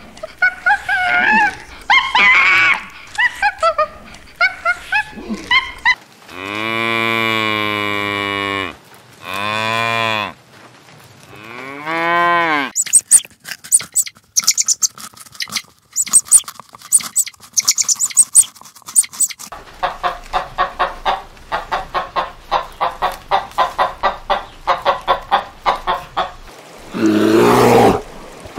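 A string of different animal calls. About a third of the way in come three long, low, drawn-out calls. They are followed by a run of short high calls, then a quick even series of about three calls a second, and a loud roar near the end.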